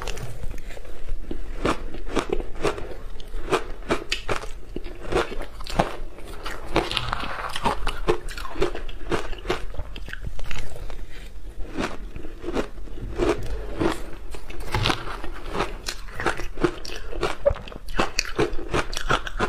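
Shaved ice coated in milk powder being bitten and chewed close to the microphone: a dense, irregular run of crisp crunches.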